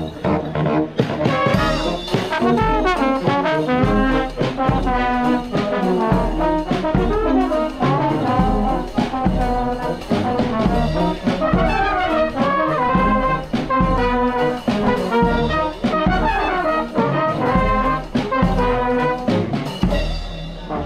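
Street brass band playing a lively tune: saxophones, trumpets and trombones with a sousaphone, over a steady bass-drum beat.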